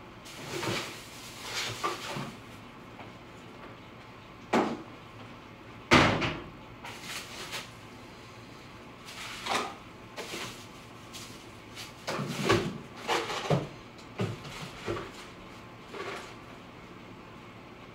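A refrigerator being opened and things shifted around inside to make room for a pie dish: scattered knocks and clunks, the loudest about six seconds in.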